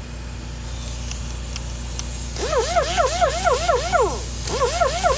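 Fine sandpaper worked back and forth by hand on an aluminium alloy wheel rim, squeaking with each stroke: quick rising-and-falling chirps about four a second, in two runs starting a little over two seconds in, over a steady low hum.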